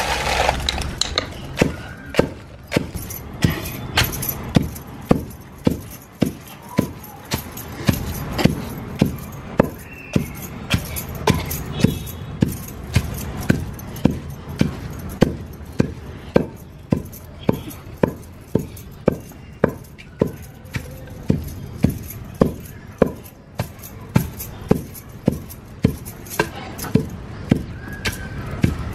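Hand food preparation for roti and chutney: steady rhythmic striking, about two sharp hits a second, that goes on without a break.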